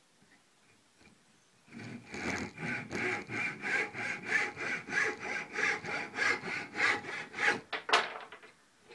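Hand saw cutting across the end of a green-wood pipe blank clamped in a vise: quick, even back-and-forth strokes, about three a second. They begin about two seconds in and stop near the end, after a couple of harder final strokes as the cut goes through.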